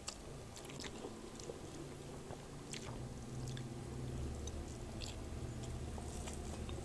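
Faint chewing and eating by hand from bowls: kupat tahu with rice being chewed, with scattered small clicks. A low hum comes up in the background about halfway through.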